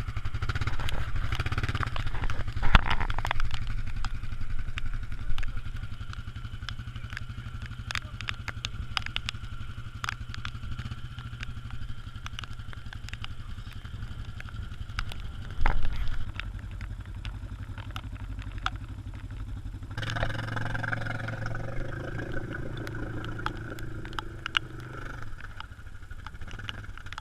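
An ATV engine runs steadily as the quad drives over rough, wet ground, with scattered sharp ticks and clatter. The engine pulls harder about 20 seconds in, then eases back near the end.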